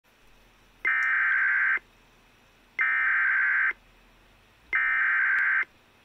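Emergency Alert System SAME header: three identical bursts of digital data tones, each about a second long with a second's pause between, carrying the coded alert for a National Weather Service severe thunderstorm warning.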